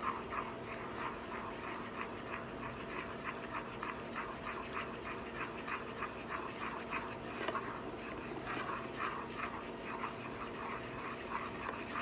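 Chili powder and turmeric in oil being stirred in a small pan as it heats to make a coloured chili oil: a quick rhythmic scraping, about four or five strokes a second, over a steady low hum.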